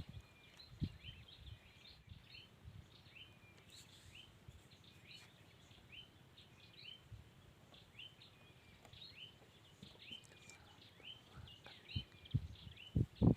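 Birds chirping, short high calls repeating about twice a second over faint outdoor background noise, with a few low knocks near the end.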